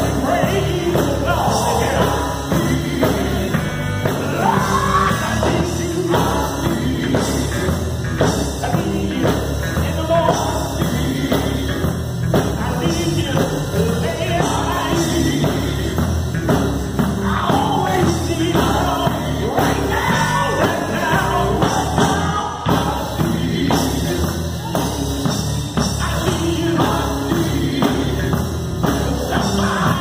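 Live male gospel group singing, a lead voice out front with other voices behind, over a band of electric guitar and drums with a steady beat.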